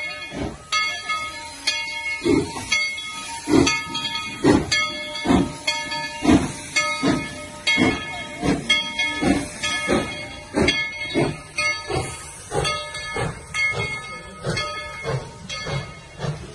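Steam locomotive No. 190's bell ringing steadily, about one and a half strokes a second, over a hiss of steam.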